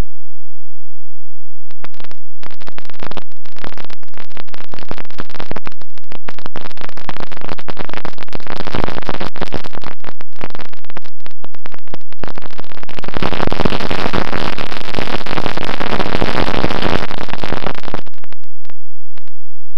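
Loud hissing, crackling static that cuts in and out abruptly over and over, heaviest near the end, with a faint low hum in the quiet gaps: the noise of a breaking-up FPV video link.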